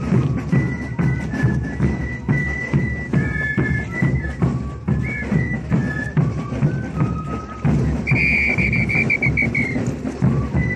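Andean folk dance music: a high flute melody over a steady bass-drum beat. About eight seconds in, a trilled whistle blast sounds for about two seconds.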